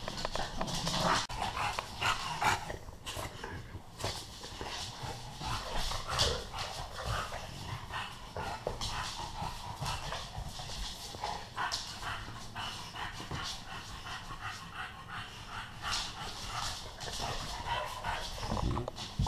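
A bullmastiff and an English bulldog play-fighting: the dogs' breathing and mouthing noises mixed with scuffling and many short clicks and knocks of paws and claws on a laminate floor.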